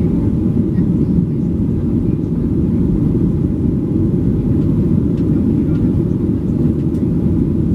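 Cabin noise of a Boeing 737-800 climbing out after takeoff: a steady low roar of its CFM56-7B engines and the airflow, heard from inside the cabin at a window seat behind the wing.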